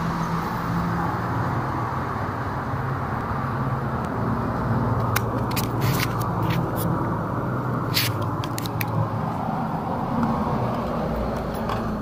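Steady street traffic noise with a low engine hum, broken by a few sharp clicks and taps about halfway through.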